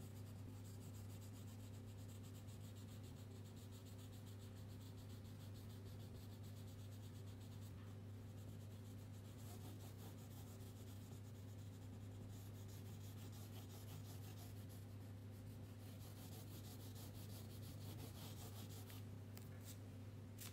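Faint scratching of a crayon shading on paper in fast, repeated back-and-forth strokes, over a steady low electrical hum.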